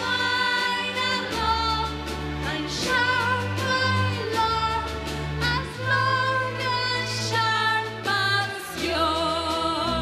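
A young female voice singing a melody with vibrato into a microphone, over an orchestra with cellos whose low notes are held and change every second or two.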